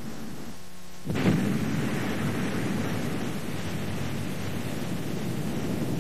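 Underwater explosive test charge detonating about a second in: a sudden blast, followed by a long rumble that keeps going.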